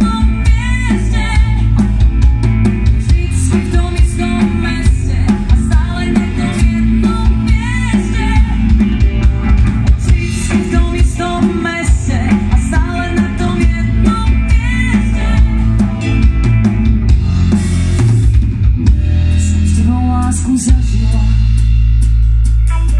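Live rock band playing through a PA: a female lead vocal over electric guitars and a drum kit with steady kick and snare. The singing stops near the end while the instruments carry on.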